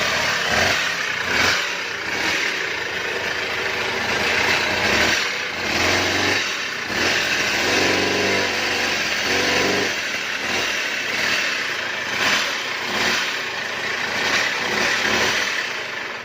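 Small two-stroke chainsaw engine, taken off the saw for another use, running and being revved up and down repeatedly.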